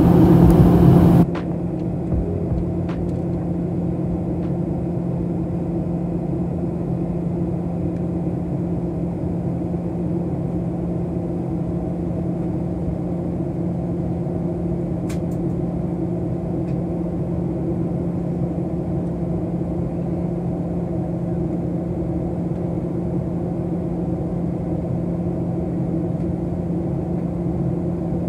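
Steady cabin drone of a Boeing 737-700 in flight, heard from inside the cabin, with a constant low hum from its CFM56 engines, during the descent toward landing. A louder rush fills the first second and cuts off suddenly.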